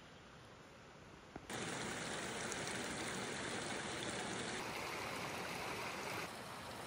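Small forest creek trickling and splashing over rocks, a steady rush of water that starts suddenly about a second and a half in and steps down a little in level near the end.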